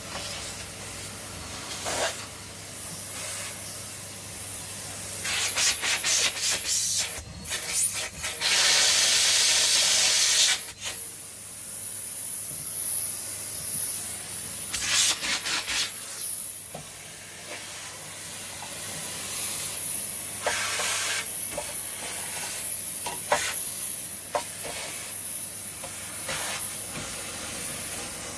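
Numatic Henry XL cylinder vacuum cleaner running with a steady hiss of air. It is broken by clicks and by louder rushes as the nozzle is worked: the loudest lasts about two seconds, a third of the way in, and shorter ones come about halfway and near three quarters of the way through.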